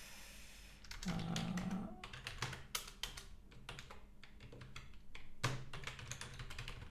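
Computer keyboard typing: irregular key clicks throughout, with a brief low hum about a second in.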